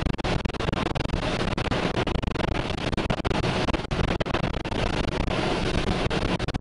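Tornado-force wind rushing over an armoured storm-chasing vehicle, with a constant rattle of many sharp ticks and knocks from rain and flying debris striking its body and windshield.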